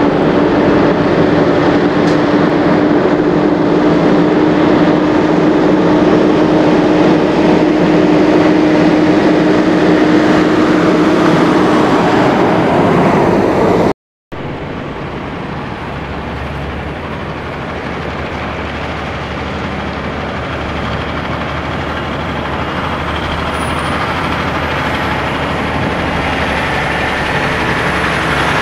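Diesel engines of semi trucks running as they pull through at low speed. First comes an orange Peterbilt with a steady whine over the engine noise. After a brief break a second tractor-trailer is heard, growing gradually louder as it passes close by.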